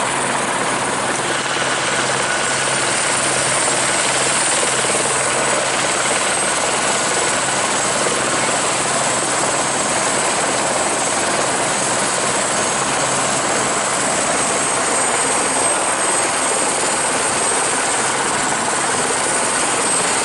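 Tour helicopter in flight, heard from inside the cabin: a steady, loud rush of turbine and rotor noise over a constant low hum.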